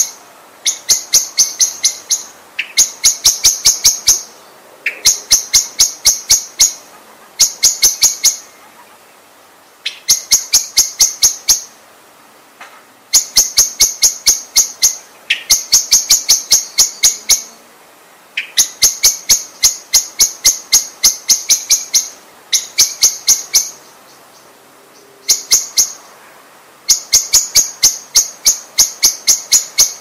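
Common blackbird calling in repeated bursts of sharp, quickly repeated notes, several a second. Each burst lasts one to two seconds, with short pauses between them, about a dozen bursts in all.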